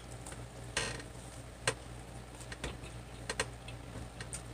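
Scattered soft clicks and smacks of eating by hand, chewing and picking at fried chicken, with a faint low hum underneath.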